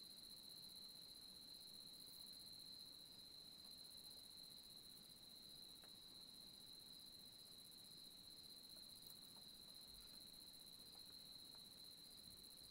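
Crickets trilling steadily and faintly, one continuous high-pitched chirr.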